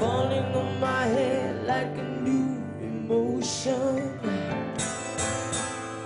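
Live band music: a melodic line slides and bends up and down over sustained instrumental chords during the first four seconds, and the accompaniment carries on softer after that.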